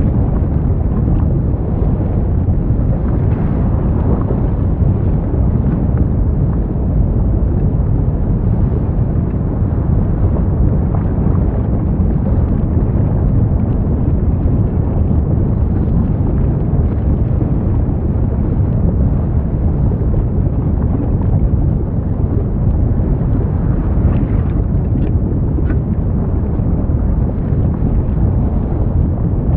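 Low, steady rumble of an erupting volcano's lava crater, with a few faint pops near the end.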